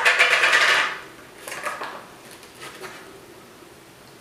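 A pint of ice cream being opened and eaten: a scraping rustle just under a second long at the start, then a few fainter scrapes as a metal spoon digs into the hard-frozen ice cream.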